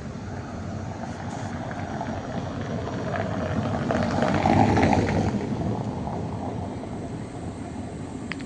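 Street traffic noise, with a vehicle passing close by: it swells to its loudest about four to five seconds in and then fades.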